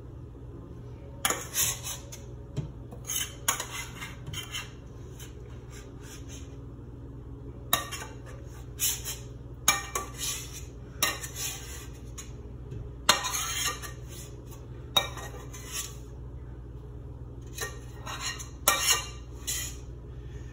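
Metal spatula scraping wet spent brewing grain out of a stainless steel pot: a dozen or so irregular scrapes and clinks against the pot wall, over a steady low hum.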